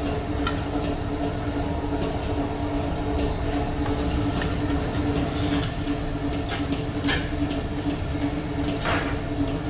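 Steady machinery hum and rumble with a constant low tone, with a few light knocks and clinks, about half a second in, about seven seconds in and near the end.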